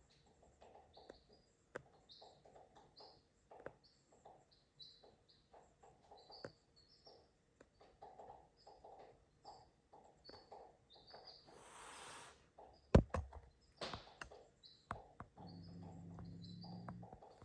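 A small bird chirping over and over, short high chirps about once or twice a second, with scattered light clicks and knocks. A short burst of hissing comes about 12 s in, a sharp knock follows a second later, and a low hum starts near the end.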